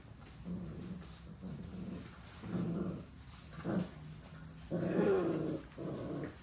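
American bully puppies growling as they play-fight, a string of short growls that is loudest about five seconds in.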